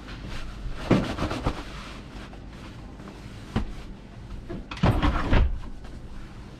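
Bedding being handled on a sleeper-train bunk: a pillowcase and sheets shaken and rustled, in two loud bursts about a second in and near five seconds, with a single sharp knock between them, over a steady low hum.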